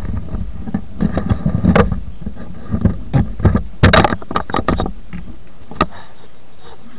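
Handling noise on the camera microphone: irregular rustles and knocks from a bag and sunglasses being handled, over a low rumble that drops away about five seconds in. One sharp click follows near the end.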